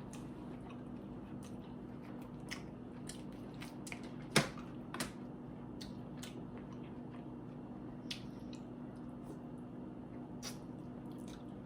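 Mouth sounds of eating sauce-covered lobster tail: scattered small wet clicks and smacks of chewing and sucking, the loudest about four seconds in, over a steady low hum.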